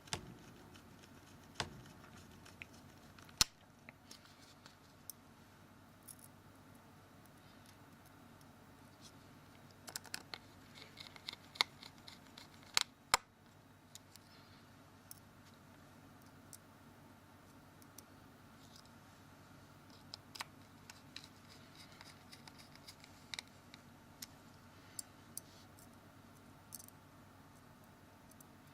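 Small Phillips screwdriver driving the tiny screws back into the plastic rear case of a Samsung Galaxy S2: scattered sharp clicks and taps, with runs of faint quick ticking near the middle and again later on.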